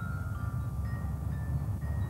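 Marching glockenspiels playing a slow melody, one ringing note after another, stepping down in pitch, over a steady low rumble.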